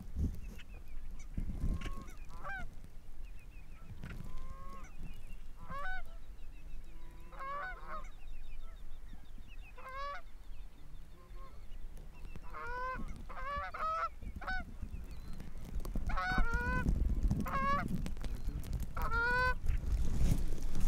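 Canada goose honking: short two-note honks and clucks in clusters every second or two, coming thicker in the last few seconds, over a low rumble that grows near the end.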